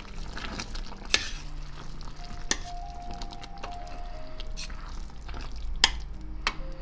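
A spoon stirring simmering apple jam in a steel pot, knocking sharply against the pot several times, over the low sizzle of the bubbling syrup.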